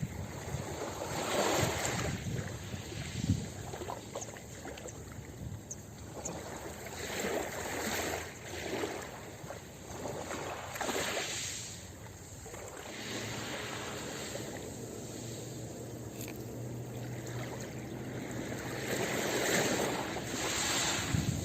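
Ocean waves breaking and washing up a beach, a constant rushing surf that swells and falls back in irregular surges every couple of seconds.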